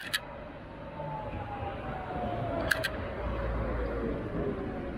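An articulated electric tram approaching and passing close by, its motor whine falling steadily in pitch, with a low rumble as it draws alongside. Sharp double clicks sound twice, near the start and about halfway through.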